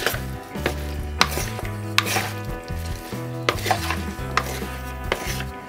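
Wooden spoon tossing a salad of roasted sweet potato cubes, green beans and red onion in a bowl: irregular knocks and scrapes against the bowl, roughly two a second.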